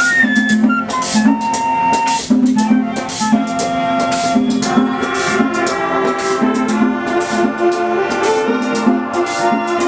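A live band playing a merengue: held melody notes over a steady rhythm of sharp shaker or scraper strokes, about three a second, and a repeating bass figure.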